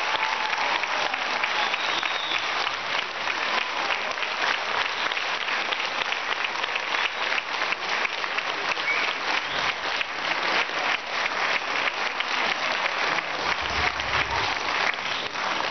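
Audience applauding, a dense steady clapping with no break.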